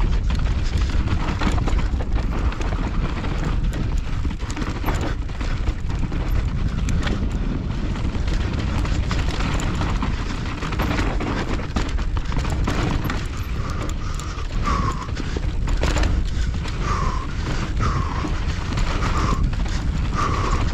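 Mountain bike descending a loose, dusty trail at race pace: constant wind rush on the mic over tyres skidding and crunching on dirt, with the frame and parts rattling and knocking over ruts and rocks. In the later half there are several brief high chirps.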